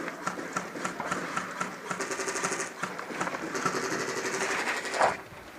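Airsoft electric gun firing on full auto: a short burst about two seconds in, then a longer burst of about a second and a half, rapid even shots over a steady motor whine.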